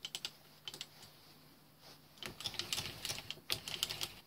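Faint light metallic clicks and rattles from a lathe's carriage lock being worked by hand: a few clicks at the start, then a quicker run of clicking from about two seconds in.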